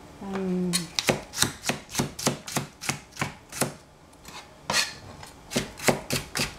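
Cleaver chopping celery stalks on a plastic cutting board: a run of sharp knocks about four a second, a pause of about a second just past the middle, then more knocks.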